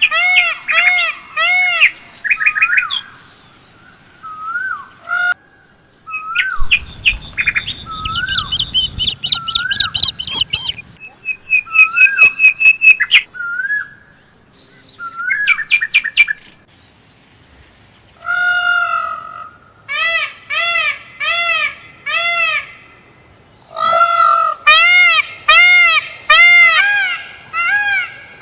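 Several birds calling. Loud series of arched, rich-toned call notes repeat about twice a second, with rising single notes and faster high chirps between them. A low rustling noise runs for a few seconds in the middle.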